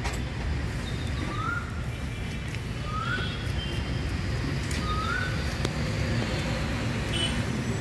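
Steady low rumble of background traffic, with a bird's short rising chirp repeated three times about every second and a half to two seconds, and a couple of faint light ticks near the end.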